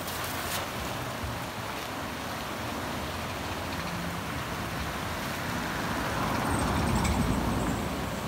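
Steady rush of a fast-flowing river spilling below a sluice gate, with the cast net's splash just after the start. A low rumble swells and fades about six to seven seconds in.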